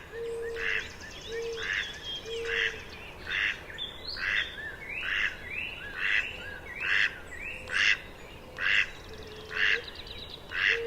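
Male mallard calling over and over, about one call a second, with a northern cardinal singing fainter in the background.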